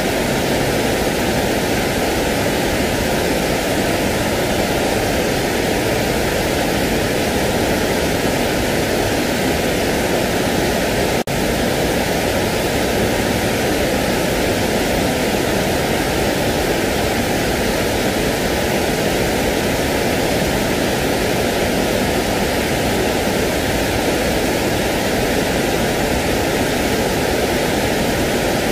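Continuous, even rushing hiss of a sleep noise track used to soothe a crying baby. It cuts out for an instant about eleven seconds in.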